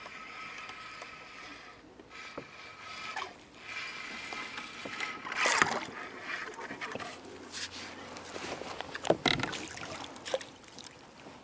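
A hooked fish thrashing and splashing at the water's surface beside a kayak, loudest about five and a half seconds in. A landing net follows it into the water, with sharp knocks and rattles of gear against the kayak near the end.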